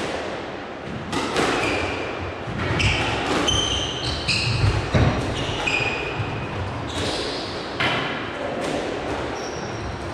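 Squash rally: repeated sharp hits of the ball off rackets and court walls, with short high squeaks of court shoes on the floor between them.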